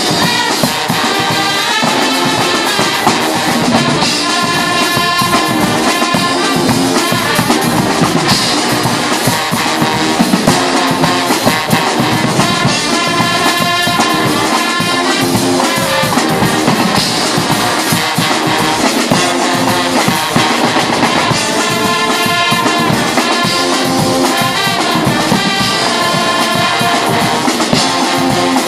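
A Guggenmusik carnival band playing live and loud. Trumpets, trombones, baritone horns and sousaphones play over marching bass drums, snare and crash cymbals keeping a steady beat.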